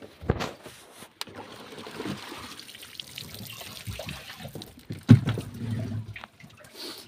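Water trickling and splashing as wet plastic baskets and crates are handled, with several hard knocks of the baskets against the boat. The sharpest knock comes about five seconds in.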